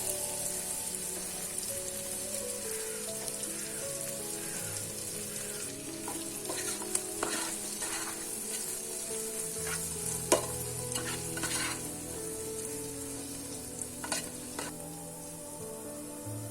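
Food sizzling in a hot pan, a steady hiss with scattered clicks and scrapes from stirring in the middle stretch.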